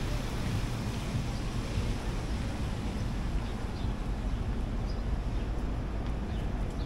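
Steady city street noise: a continuous hiss with a low rumble, and a few faint high chirps near the middle.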